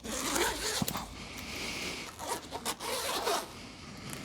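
A zipper, most likely on a guitar gig bag, being pulled open in two long rasping runs.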